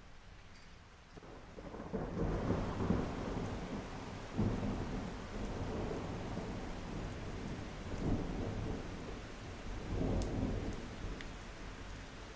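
Steady rain with a long roll of thunder: a low rumble builds about a second in, swells in several surges, and eases off near the end.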